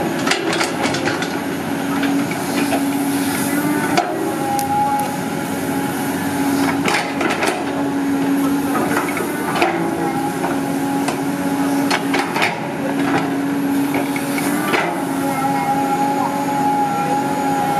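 Caterpillar 320D hydraulic excavator working, its diesel engine and hydraulics running with a steady whine that breaks off and comes back every few seconds. Sharp clanks and knocks sound every two to three seconds.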